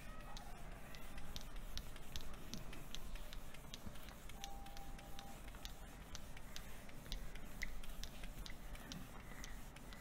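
Whiteboard being wiped clean with an eraser: faint rubbing with a quick, uneven run of soft ticks from the back-and-forth strokes.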